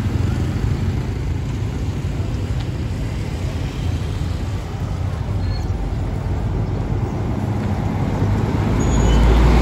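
Road traffic: motorbike and car engines running past at a junction. Near the end a large coach bus passes close, and its engine rumble swells louder.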